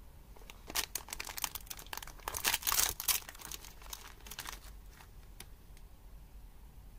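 Thin polypropylene snack wrapper of an individually wrapped raisin biscuit crinkling and tearing as it is pulled open by hand and the biscuit is slid out. The crackling is densest and loudest between about two and three seconds in, then thins out after about four and a half seconds.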